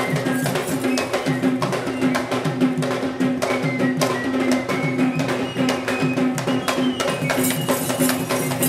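Several Sri Lankan barrel drums played together in a fast, driving rhythm of sharp strokes, with a steady droning tone held underneath.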